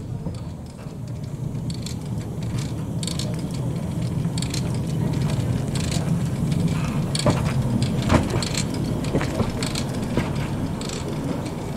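Narrow-gauge steam locomotive Douglas, an Andrew Barclay 0-4-0 well tank, moving slowly over the rails with a low rumble. Its motion and wheels make sharp metallic clanks and clicks, loudest a little past the middle.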